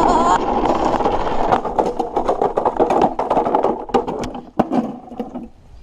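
Toy truck rolling fast downhill over rough ground, rattling and clattering with many sharp knocks. The noise dies away near the end as the truck slows or comes to rest.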